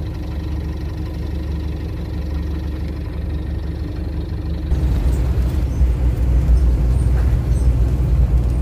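Vehicle engine and road noise: a steady low drone that grows louder and noisier about five seconds in.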